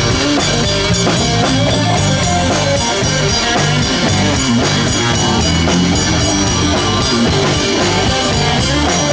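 Live rock band playing an instrumental passage: guitar, bass and drum kit with a steady beat.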